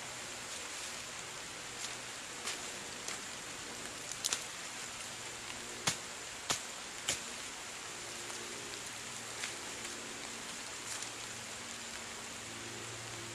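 Steady rain pattering through a forest canopy, heard as an even hiss. Partway through come a few sharp knocks or snaps of wood, three loud ones in quick succession about halfway.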